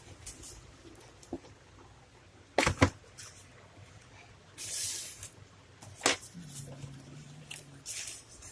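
Packaging of a multimeter box being handled while it is opened: a couple of sharp clicks about two and a half seconds in, a brief rustle of cardboard or plastic near the middle, and another click a second later, followed by a faint low hum.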